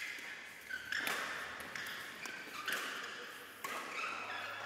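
A badminton doubles rally: four sharp racket hits on the shuttlecock, each ringing on in the large hall, with short high squeaks typical of shoes on the court mat in between.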